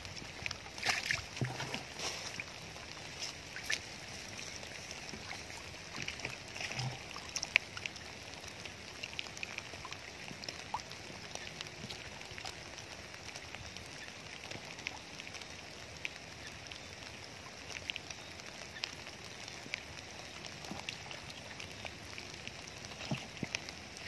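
Shallow muddy water in a rice-paddy channel trickling, with a steady hiss and many small scattered splashes and ticks that are busiest in the first several seconds.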